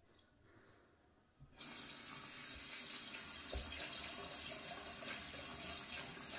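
Bathroom sink tap turned on about a second and a half in, then water running steadily into the basin, as for rinsing cleanser off the face.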